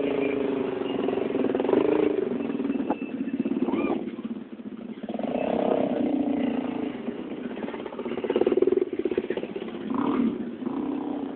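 Dakar rally motorcycle engines running as the bikes ride by, the sound swelling and fading several times as one bike after another passes.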